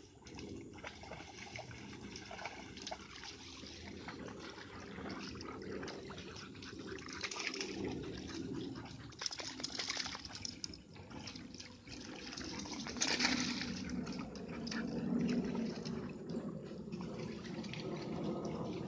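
Water splashing and running, an uneven rush with louder splashes about ten and thirteen seconds in.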